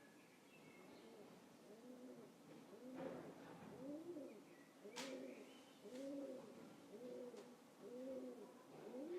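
Faint pigeon cooing: a run of about eight low, arched coos, roughly one a second, beginning about two seconds in. Two sharp clicks come around three and five seconds in, and a small bird chirps faintly.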